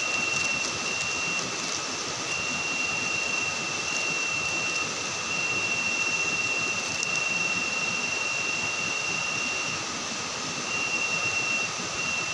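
Outdoor camp ambience: a steady hiss with a high, thin whining tone that breaks off and comes back several times.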